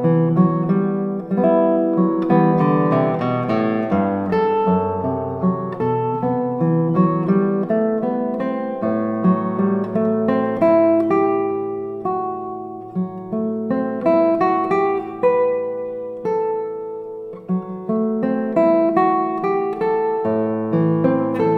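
Solo classical guitar, an Otto Rauch Montagnana cedar double-top, played fingerstyle: a melody of plucked notes over ringing bass notes, with a long held low note about nine seconds in and again near the end.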